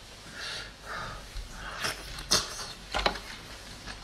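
Close-up mouth sounds of eating a raw oyster: soft slurping from the shell during the first couple of seconds, then a few sharp clicks as the oyster shell is set back against the plate.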